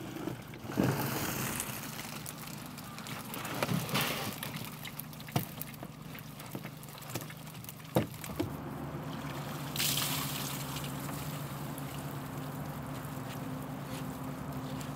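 Water splashing and trickling as pond smelt are scooped from a net with a dip net and poured into plastic baskets on a small boat, with scattered knocks. A steady low motor hum joins about halfway.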